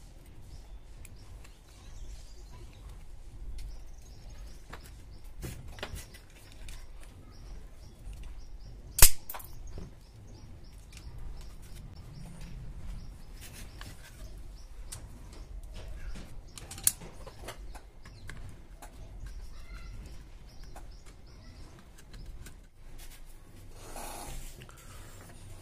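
Handling noise from working with a plastic lamp holder, wires and a board: scattered small clicks and taps, with one loud sharp click about nine seconds in and a smaller one near seventeen seconds.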